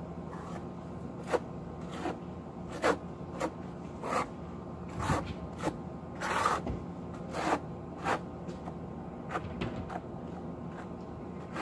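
Trowel scraping thin-set mortar across the back of a split-face travertine stone panel, back-buttering it: about a dozen short, uneven strokes, one longer smear near the middle.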